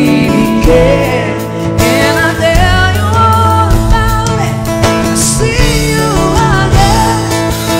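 Live band music: a woman singing lead into a microphone over guitar and drums.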